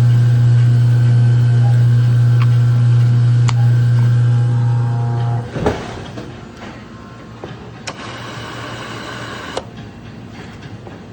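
A steady, loud machine hum that stops suddenly with a clunk about halfway through, followed by quieter background noise and a few sharp clicks.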